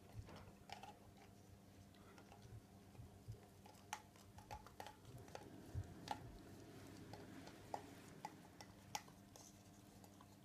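Cockapoo puppy licking out a plastic yoghurt pot, faint, with irregular sharp clicks and knocks of the plastic pot as it shifts about.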